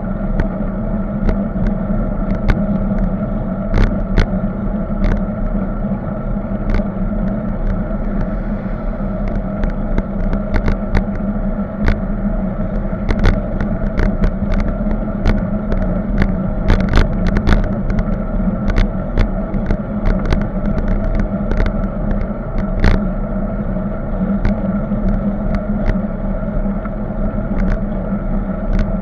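Riding noise picked up by a camera mounted on a moving bicycle: a steady rumble of wind and road, broken by frequent irregular clicks and rattles, with car traffic on the road alongside.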